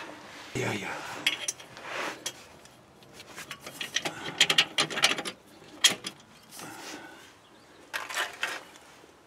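Irregular light metallic clicks and clinks: hands handling a new steel exhaust pipe and its bolted flange, with bolts knocking against the metal.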